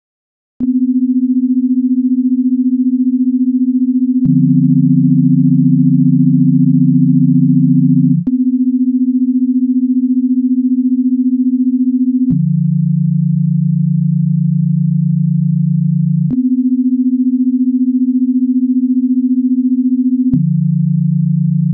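Electronic sine-tone drone soundtrack: a steady low tone starts with a click about half a second in, a lower tone joins it about four seconds in, and from then on the sound switches between the higher and the lower tone about every four seconds, with a click at each change.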